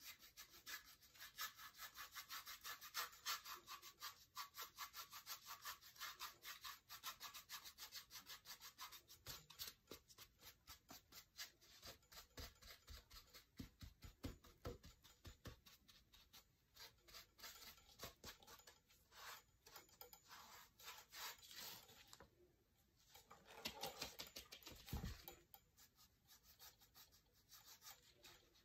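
Paintbrush bristles scrubbing and dabbing paint onto a lamp base in quick, repeated strokes, a faint scratchy rubbing that pauses briefly about three-quarters of the way through. The brushwork builds up a textured paint finish.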